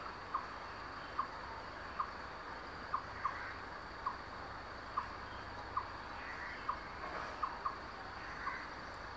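Forest ambience: a short single-note animal call repeated about once a second, over a faint steady high insect tone.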